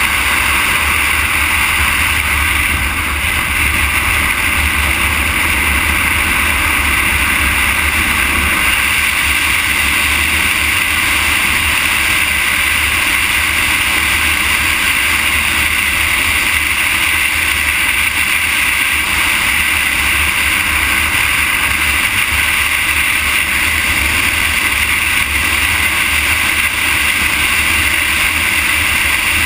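Steady rushing wind and road noise on the microphone of a camera moving along an asphalt road, with a low rumble underneath and no change in pace.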